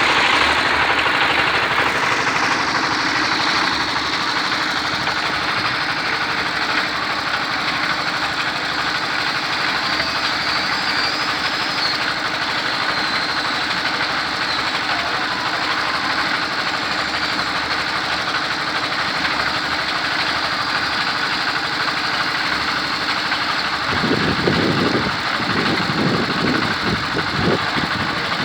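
Huina 1550 RC excavator's electric motors and plastic gearboxes running with a steady whirring. Near the end there is a run of irregular low knocks.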